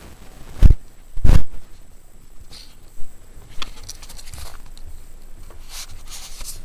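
Handling noise on a handheld camcorder: two heavy low thumps about half a second apart, about a second in, then a few faint clicks and some rustling.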